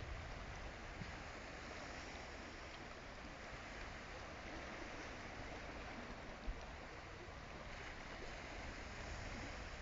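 Steady wind rushing, buffeting the microphone with a low rumble, with one short tap about six and a half seconds in.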